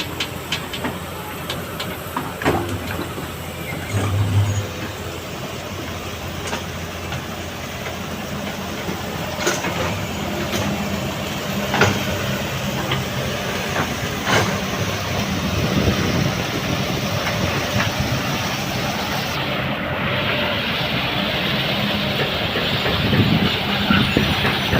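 Excavator's diesel engine running steadily, growing louder about a third of the way in, with scattered sharp metallic clanks.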